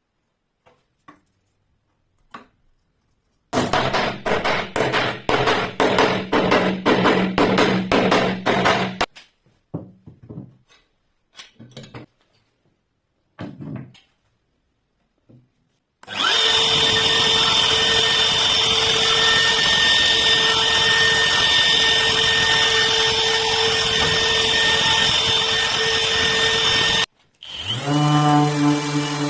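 Electric wood router running steadily while cutting a groove in wood, stopping abruptly, then spinning up again with a rising whine near the end. Earlier there are a few seconds of quick repeated rasping strokes and some scattered knocks.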